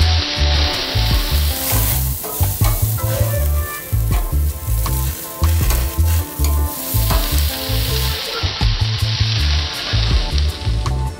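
Red pepper halves and large mushrooms sizzling on a hot barbecue grill. The sizzle thins out about two seconds in and comes back strongly about seven seconds in. A low, rhythmic bass line of background music runs underneath.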